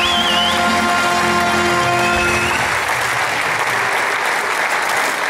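Audience applauding, with music holding a sustained chord that stops about two and a half seconds in, leaving the applause alone.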